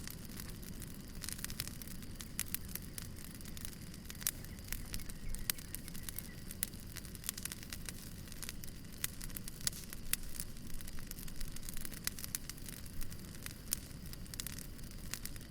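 Wood fire crackling: many sharp pops and snaps, several a second at irregular intervals, over a steady low rumble of the burning.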